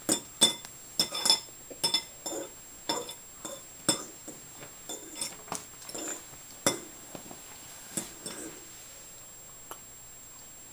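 A metal fork clinking and scraping against a ceramic bowl of noodles: a run of sharp clinks, a few a second, mostly in the first eight seconds.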